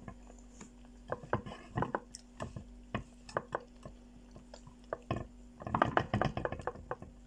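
Close-up eating sounds: chewing and wet mouth smacks, with scattered soft clicks of fingers picking at food in a frying pan. A denser run of smacking comes about six seconds in.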